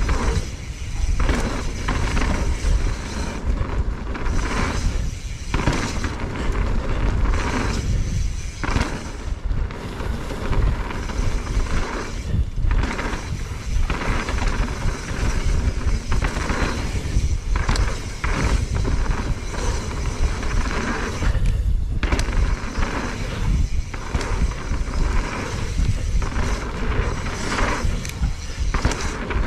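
Mountain bike ridden down a dirt forest trail, heard from an action camera on the bike or rider: heavy wind buffeting on the microphone over the noise of knobbly tyres on dirt and the bike rattling over bumps, rising and falling with the terrain.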